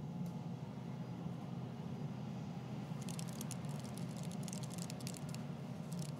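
Computer keyboard typing: irregular runs of quick light key clicks with pauses between them, starting about halfway in, over a steady low hum.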